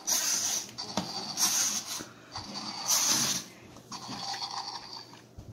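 Battery-powered toy dinosaur's electronic roar playing from its small speaker in three short raspy bursts, the first the loudest, then fading.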